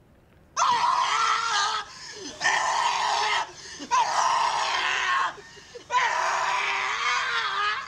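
A person screaming: four long, loud, high-pitched shrieks, each a second or more, with short breaks between them, starting about half a second in.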